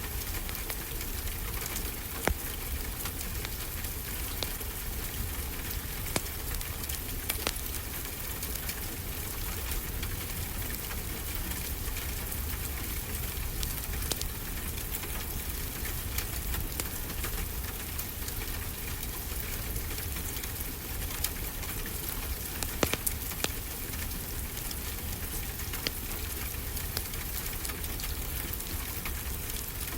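Steady rain, with a wood fire crackling alongside it in scattered sharp pops, a few of them louder than the rest.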